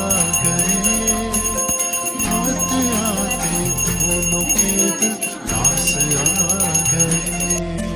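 Background music with bells jingling and ringing over a moving melody; the bell ringing cuts off abruptly near the end.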